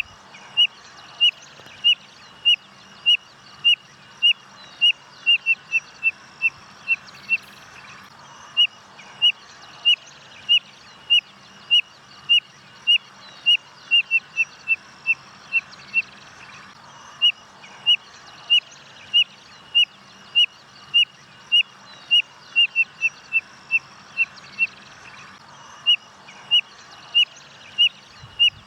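A codorna-amarela (spotted nothura) whistling: a long series of short, high whistled notes, one or two a second. Three times the notes quicken into a close run and then stop briefly before the series starts again.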